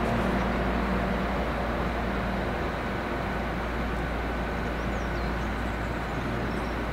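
Steady rumble of a train out of view, with an engine drone that fades away over the first two seconds or so. A few faint bird chirps come about five seconds in.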